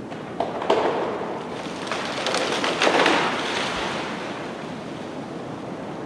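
Steady rain, with a louder, crackly surge about half a second in that builds and fades away by about three and a half seconds in.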